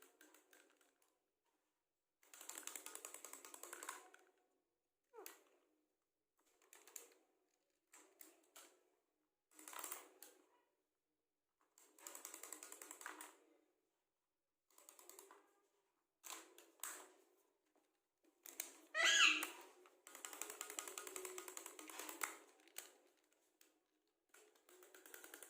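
Short bursts of rapid, clicking chatter and chirping, separated by brief silences, with one loud whistled chirp that slides in pitch about 19 seconds in.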